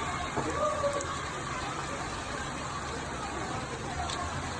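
Steady rain falling, with distant voices calling out and a low engine rumble underneath.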